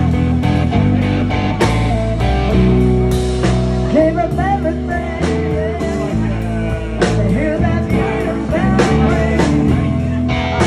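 Live blues-rock band playing: electric guitar over a drum kit and bass guitar, with steady drum hits.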